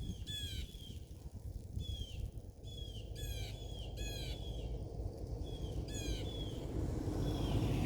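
Birds calling: a dozen or so short, high squawks that fall in pitch, coming in quick clusters, over a low steady background rumble.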